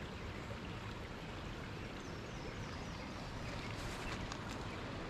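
Steady rush of flowing creek water, with a few faint chirps and light clicks over it.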